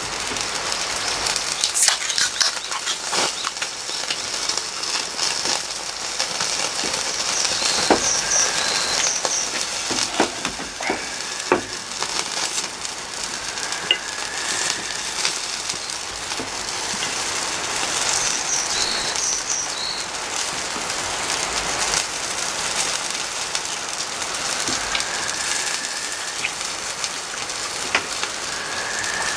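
Yakitori skewers of meat and leek sizzling on a tabletop grill: a steady hiss with scattered pops and crackles of fat, and a few sharp clicks as the bamboo skewers are turned.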